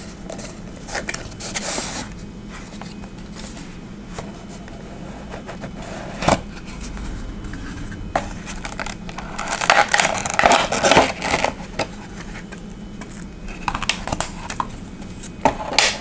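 Cardboard box and plastic packaging being handled as a flashlight box is opened: irregular scraping and rustling, with a sharp knock about six seconds in and a busier stretch of rustling about ten seconds in.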